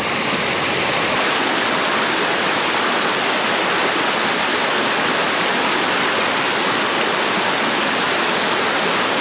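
Mountain stream rushing: a steady, even wash of running water.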